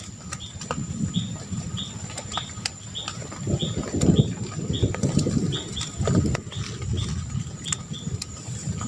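A bird repeating a short, high chirp about twice a second, over an uneven low rumbling noise that swells a few times, with a faint steady high-pitched tone underneath.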